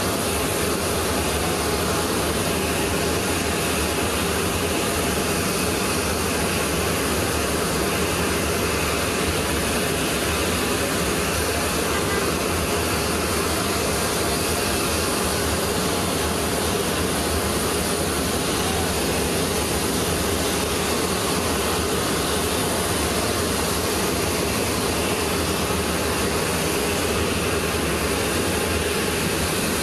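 Steady jet-turbine noise from a parked C-17 transport aircraft, a constant, unbroken whine and rush.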